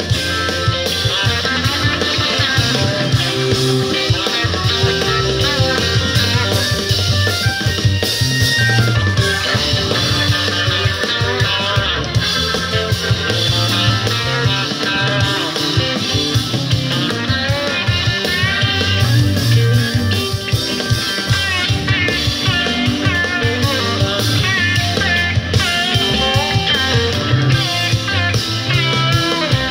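Live rock band playing a jam: electric guitar lead lines over bass guitar and drum kit.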